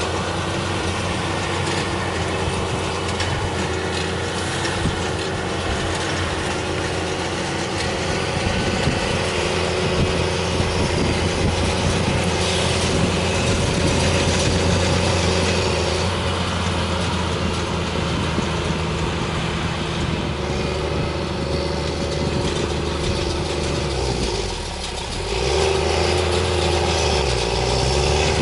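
Tractor running a hay baler: a steady engine note mixed with the baler's mechanical noise. The sound dips briefly near the end, then comes back a little louder.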